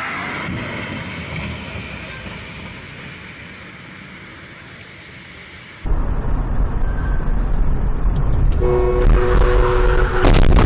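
Tyres hissing on a wet road, fading over several seconds. Then, about six seconds in, a sudden loud low rumble of driving heard from inside a car, with a car horn sounding a long held note from about nine seconds in.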